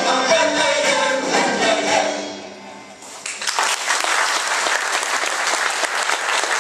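Mixed choir singing the closing phrase of a Polish Christmas carol, the last chord dying away about two to three seconds in. Audience applause then breaks out suddenly and carries on.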